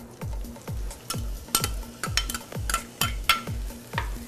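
Spatula stirring and scraping chopped red onion sautéing in oil in a frying pan, a quick run of sharp scrapes starting about a second and a half in. Background music with a steady beat plays under it.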